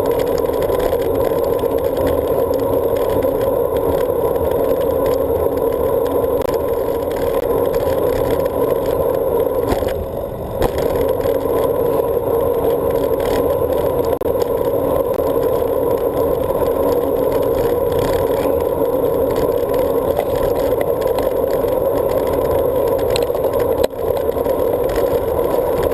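Steady wind rush and road noise of a bicycle being ridden, picked up by a handlebar-mounted GoPro, with a brief dip about ten seconds in.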